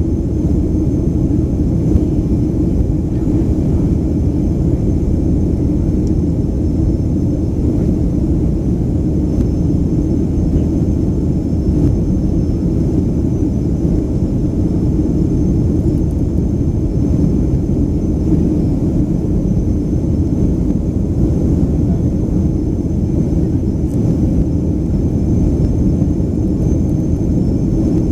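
Steady cabin roar of a Boeing 737-500 in flight, heard from a window seat over the wing: its CFM56-3 jet engines and the airflow make a deep, even rumble, with a faint high steady whine above it.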